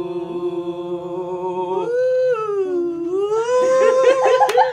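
A person singing a slow tune a cappella, holding long steady notes, with a pitch slide up, down and back up about two seconds in. A few sharp claps come in near the end.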